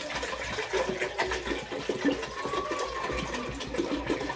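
Water poured in a steady stream from a large plastic bottle into a steel cooking pot, splashing into the pot.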